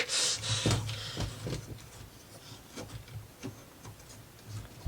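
Plywood parts of a UGEARS wooden marble-run mechanism being worked by hand: a rub in the first second, then irregular light wooden clicks as the pieces move, one part still catching on another.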